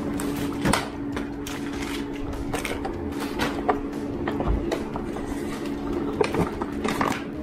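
Plastic packaging crinkling and rustling as items are unwrapped and handled, with irregular small clicks and taps, over a steady low hum.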